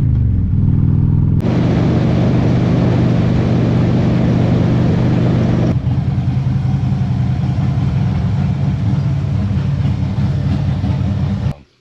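Motorcycle engine running while riding, with wind and road noise. The pitch falls in the first second as the bike slows, then holds steady, with two sudden shifts in sound where the footage is cut. The engine stops abruptly just before the end.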